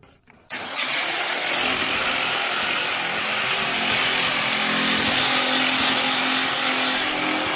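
Power grinder starting up suddenly about half a second in and then running steadily under load, grinding old Bondo body filler and paint off a car's steel quarter panel.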